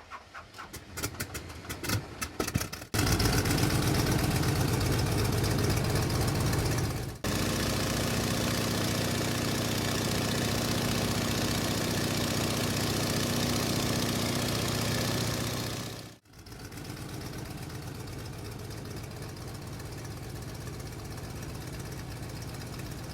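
Light airplane's piston engine being cranked with irregular knocks, catching about three seconds in and running loudly and steadily. After two abrupt cuts it runs on at a lower, even level.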